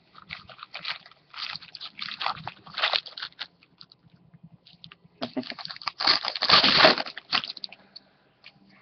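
Trading card packaging being torn open and cards handled: irregular crinkling and rustling, loudest about six to seven seconds in.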